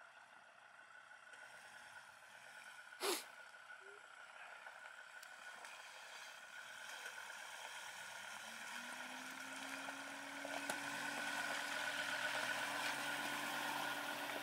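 A vehicle engine grows steadily louder as it draws near, its low engine note coming in clearly about eight seconds in. There is a single sharp click about three seconds in.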